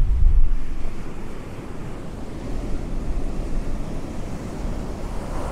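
Ocean surf breaking and foam washing up the sand, a steady rushing wash. Wind rumbles on the microphone in the first half-second, then eases.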